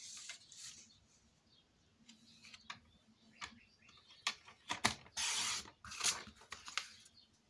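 Sliding paper trimmer clicking and rattling as its cutting head is moved along the rail to cut a strip of paper, with a short rasp a little after five seconds as the blade slices through the sheet. Paper is handled on the desk around it.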